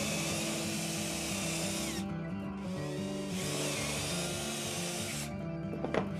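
Cordless drill boring dowel holes into plywood through a steel-bushed dowel jig: two runs of drilling of about two to three seconds each, with a short pause about two seconds in. A single sharp knock comes near the end.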